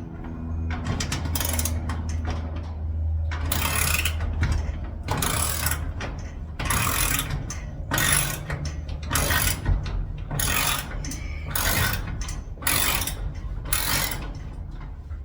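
A hand tool working on the lock hardware in short, repeated mechanical strokes, about ten of them from about four seconds in, spaced roughly a second apart, over a steady low hum.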